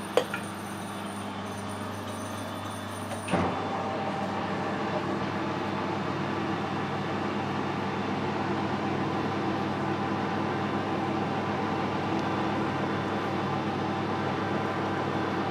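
Metal lathe spindle starting with a knock about three seconds in, then running steadily while a 5 mm drill in the tailstock chuck bores into the end of a case-hardened steel pin.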